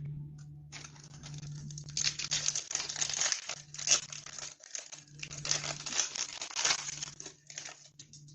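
Trading-card booster pack wrappers crinkling continuously, in uneven waves, as they are handled and torn open. A low steady hum sits underneath.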